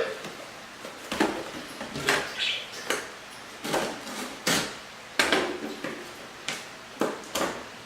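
Irregular clicks, knocks and clatter of small hard objects being handled on a work surface, about a dozen separate strikes.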